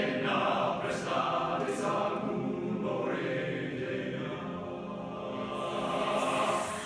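Mixed adult choir, women and men, singing in held chords. The sound eases off toward the middle and swells again near the end.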